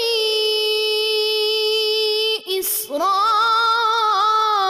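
A male reciter chanting Quran recitation, drawing out a long steady note. A quick breath comes about two and a half seconds in, then a new note rises into place and is held.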